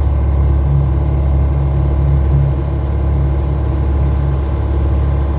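Motorboat engine running steadily underway: a loud, even low rumble with a faint pulsing throb.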